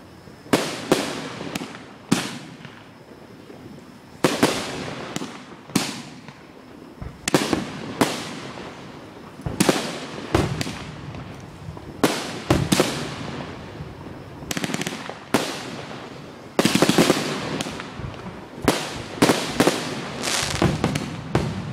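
Aerial fireworks bursting overhead: a string of sharp bangs, each trailing off in an echo, coming every second or two. About two-thirds of the way through they come in a rapid cluster.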